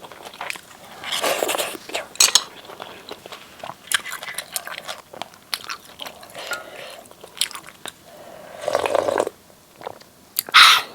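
Close-miked eating sounds: wet chewing and mouth smacks over spicy instant noodles in seaweed soup, in irregular bursts, with one louder burst near the end.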